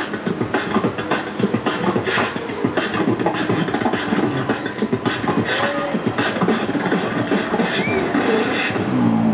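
Beatboxing into a handheld microphone: a fast, dense drum beat of percussive mouth sounds, with a few short sung pitch glides mixed in. The high hissing sounds drop out just before the end.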